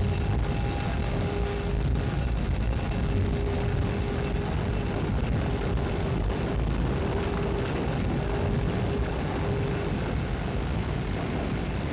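Heavy industrial machinery running: a steady rumble and hiss with a droning hum that drops out briefly a few times.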